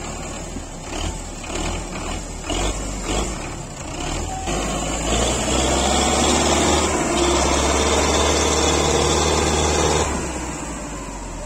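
Diesel tractor engine running, with scattered clanks in the first few seconds. About five seconds in the engine rises to higher revs and holds steady under load, then drops back about ten seconds in.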